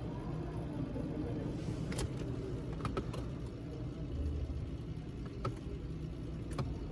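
Steady low rumble of a car, with about five sharp clicks scattered through it.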